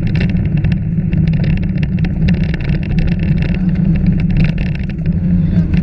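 Rally car engine running steadily at speed on a gravel stage, heard from inside the cabin, with a rapid scatter of sharp clicks from gravel striking the car.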